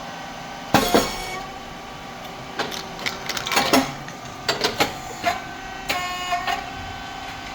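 SYP4509 rice cake popping machine running, with a steady hum from its motor, pump and fan. Over it come repeated sharp pops, each followed by a short hiss, as the heated titanium-coated moulds open and the rice cakes pop out; two come about a second in and more follow in quick clusters.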